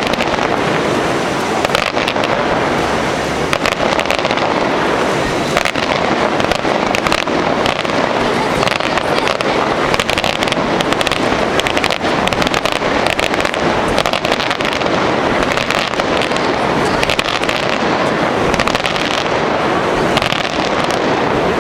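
Fireworks finale: a dense, continuous barrage of shell bursts and crackling, with no pause.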